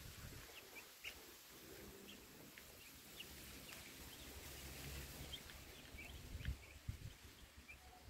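Week-old broiler chicks peeping faintly: short, high cheeps scattered every second or so.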